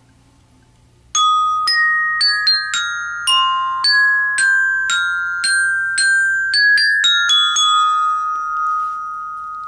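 A small metal-bar mallet instrument of the glockenspiel kind played as a slow melody: about twenty struck, ringing notes starting about a second in, the last notes left to ring and fade.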